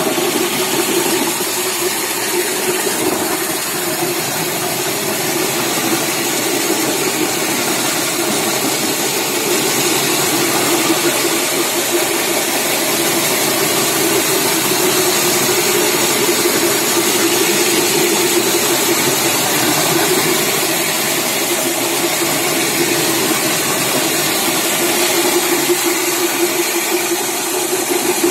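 Electric marble floor grinding machine running steadily as its rotating stone head grinds across the floor, a constant hum under an even hiss.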